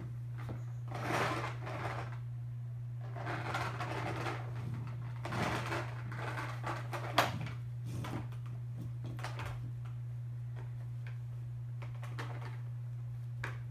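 Plastic toy train pushed across a wood floor, its wheels rolling and rattling in short spells, with one sharp knock about seven seconds in. A steady low hum runs underneath.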